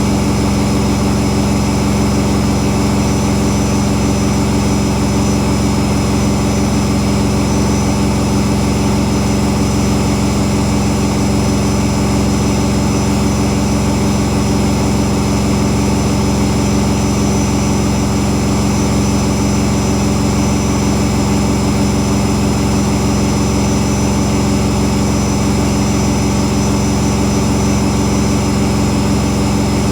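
Whirlpool Indiana 1400 washing machine running its spin cycle at full 1400 rpm speed: a loud, steady whine and hum that holds constant without speeding up or slowing down.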